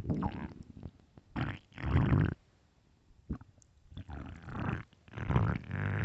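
A hungry human stomach growling loudly, gurgling rumbles from an empty stomach. It comes in about four bursts with short pauses between them, the loudest about two seconds in and near the end.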